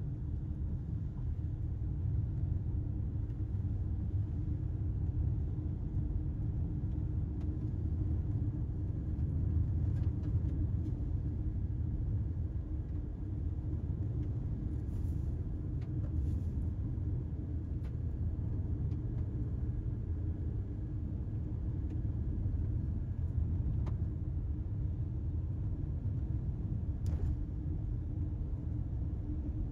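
Car being driven at a steady speed: a continuous low rumble of engine and tyre noise, with a faint steady hum and a few faint clicks.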